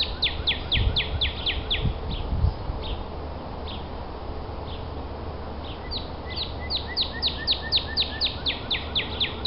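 A songbird singing fast runs of clear whistled notes, each sliding down in pitch, about four a second: one run at the start and a longer one from about six seconds in. A few low thumps come in the first two and a half seconds.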